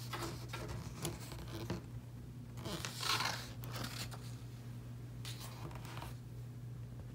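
Paper picture-book page being turned by hand: the paper rustles and slides in several strokes, loudest about three seconds in, over a low steady hum.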